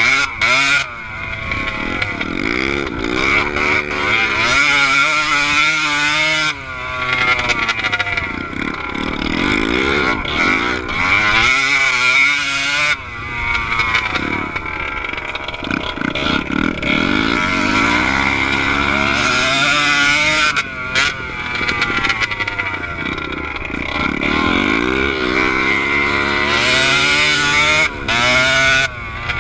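Kawasaki KDX 125 two-stroke single-cylinder dirt bike engine heard on board while riding, revving up and dropping back again and again as the throttle is opened and closed through the gears.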